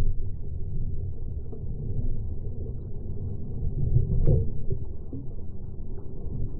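Wind buffeting the microphone as a steady low rumble, with one knock about four seconds in.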